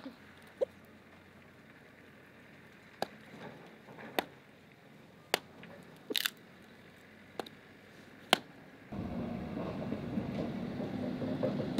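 Chickens pecking at food scraps on bare ground: sharp single pecks about once a second, with a quick flurry of pecks about six seconds in. About nine seconds in, a steady rush of wind noise on the microphone sets in.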